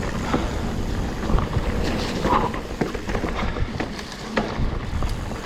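Mountain bike riding down a wet, muddy trail: Cannibal tyres rolling on the ground, with the bike rattling and clicking over roots and rough ground, many short knocks in quick succession over a low rumble.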